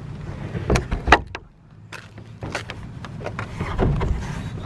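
Plastic shed wall panel knocking and scraping against the resin floor as it is pushed into its slots and slid into place: several sharp knocks, the loudest a little over a second in, then a longer scraping sound near the end.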